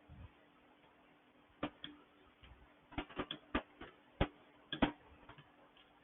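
Click-type torque wrench tightening the connecting-rod cap bolts of a Honda GCV160 engine: a string of about ten sharp, irregular clicks from under two seconds in to about five seconds in. The wrench's click is the sign that the bolt has reached its set torque.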